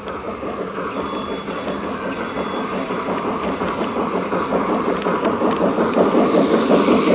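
O-gauge MTH RailKing Imperial 0-6-0 switcher's onboard steam sound system chuffing in a fast steady rhythm, slowly growing louder.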